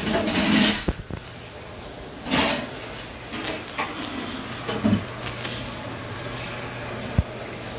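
Handling noise from a phone camera being moved around: brief rubbing swishes and knocks near the start, about two and a half seconds in and about five seconds in, with a thump near the end, over a steady low hum.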